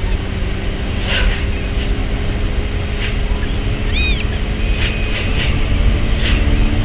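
Steady road and engine rumble of a car at highway speed, heard from inside the cabin through a windshield dashcam's microphone, with a steady low hum. A brief high chirp sounds about four seconds in.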